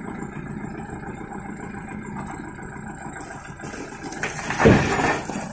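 Small diesel engine of a Japanese compact tractor running steadily as the tractor creeps along aluminium loading ramps. A loud burst of clatter lasting about a second comes about four and a half seconds in.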